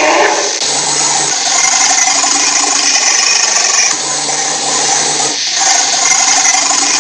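Designed giant-creature sound effect: a loud, harsh, continuous grinding rasp with a slight break about five and a half seconds in.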